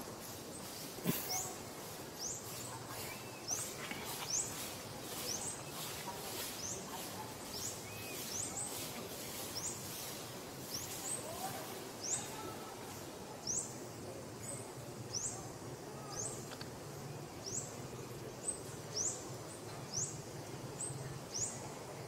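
A bird calling over and over: short, high notes that each fall in pitch, about one a second, over steady outdoor background noise.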